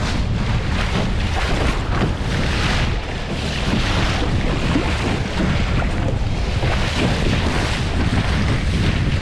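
Wind buffeting the microphone with a steady low rumble, over water rushing and splashing along the hull of a heeled Flying Dutchman dinghy under sail, the hiss coming in uneven surges.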